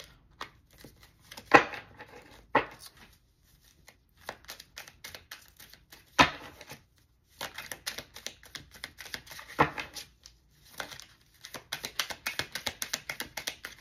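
A deck of reading cards being shuffled by hand: scattered card clicks with a few sharper slaps of the deck, then a dense run of rapid clicking near the end.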